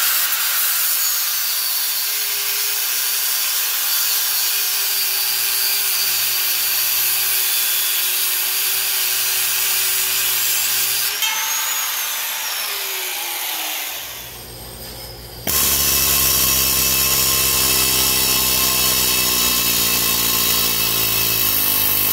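Angle grinder cutting through the bent, mushroomed ends of steel pins in an old plow wheel hub, its motor whining steadily; it winds down about thirteen seconds in. A couple of seconds later a pneumatic air hammer with a chisel starts rattling steadily against the hub, driving the pins out.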